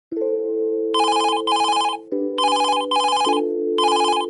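Phone ringing with a trilling double ring, three pairs repeating at an even pace from about a second in, over sustained background music chords.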